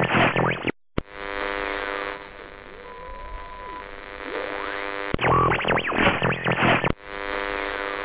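Electronic intro music: a burst of harsh, static-like noise full of rapid sweeps, a brief gap, then a humming synthesizer drone with slow sliding pitches. The sequence repeats about five seconds in.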